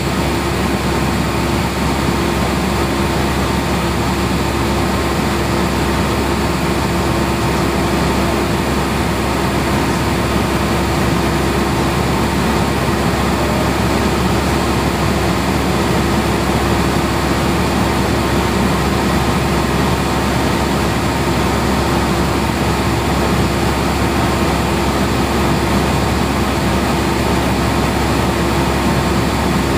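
Cessna light aircraft's piston engine and propeller droning steadily in cruise flight, with one constant hum tone running through it.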